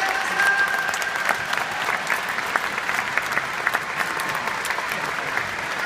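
A large stadium crowd applauding: many hands clapping together in a steady, dense patter.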